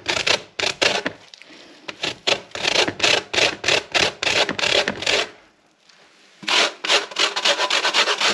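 Lemon peel being grated for zest: a quick, even run of grating strokes, about three a second, with a short pause a little past halfway before the strokes resume.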